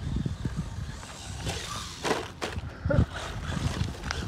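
Small 1/16-scale electric RC short-course truck with a brushed motor driving over grass, its motor and tyres running amid a steady low rumble. A few sharp knocks come between one and two and a half seconds in, and a louder low thump about three seconds in.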